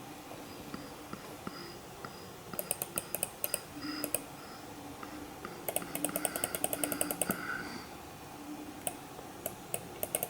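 Typing on a computer keyboard: two quick runs of keystrokes, then a few single key clicks near the end.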